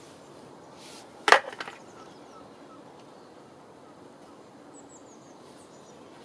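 A single sharp knock about a second in, like a tool striking wood, followed by a short clatter of a few smaller knocks. Faint high bird chirps come later.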